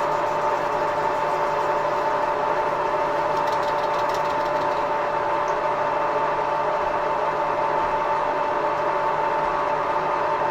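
Metal-turning lathe running steadily, a constant motor and gear whine.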